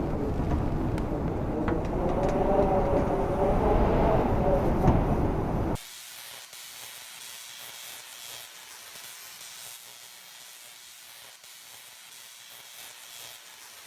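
Firework fountain hissing and spraying with scattered crackles and a wavering whine; it cuts off abruptly about six seconds in, leaving a faint hiss.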